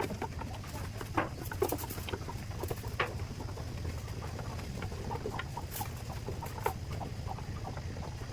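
Farm animals moving about in a shed: scattered light taps and clicks over a steady low hum.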